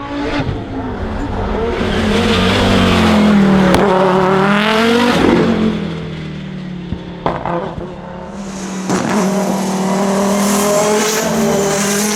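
Turbocharged five-cylinder Audi quattro race car running at race pace. Its engine note rises and falls through gear changes, with a few sharp cracks about two-thirds of the way through, then pulls hard again near the end.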